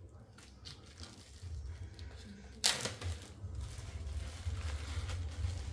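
Handling noises as raw ground beef is put from its packs into the cooker pot: light clicks, and one sharp knock about halfway through, over a low steady hum.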